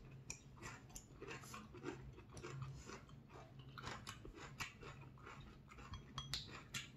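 Faint chewing and small wet mouth clicks from people eating soft hot-pot food (mille-feuille nabe), with a light tick of chopsticks now and then.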